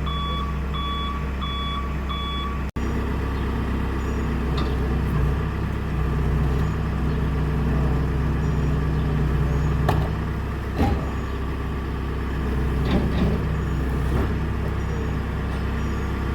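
A forklift's engine running steadily, with its reversing alarm beeping in even repeats for the first few seconds. After a brief cut the engine keeps running, with a few short knocks later on.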